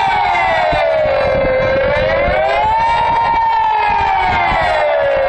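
Swiss civil-defence siren sounding the general alarm during its annual test, heard from close by. It gives a loud wail that sweeps slowly up and down in pitch, about once every four seconds.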